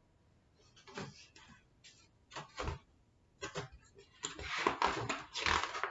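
Pages of a large picture book being handled and turned: a string of short paper rustles and scrapes, busiest and loudest in the last two seconds.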